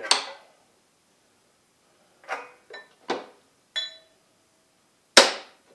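Horseshoe magneto magnet handled on steel: several short metal clinks from about two seconds in, one with a brief ringing note. They are followed just after five seconds by a single loud clank, the loudest sound here, as the freshly charged magnet snaps onto a steel plate.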